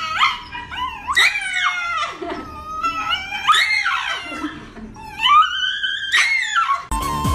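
Shiba Inu howling in about four long, wavering cries, the pitch sliding up and down within each. Music cuts in near the end.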